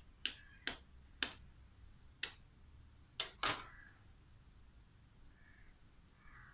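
Raw egg being cracked by tapping its shell with the blade of a kitchen knife: about seven sharp taps over the first three and a half seconds, the last one a little longer as the shell gives.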